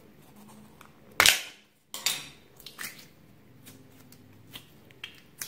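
Purple jelly slime squeezed out of its plastic container by hand: a loud sharp squelch about a second in, another just after two seconds, then several quieter clicks.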